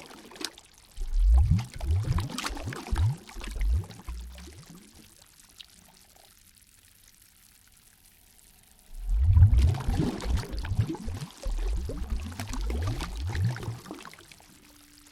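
Lake water gurgling and sloshing in two spells of several seconds each, with a quiet lull in between.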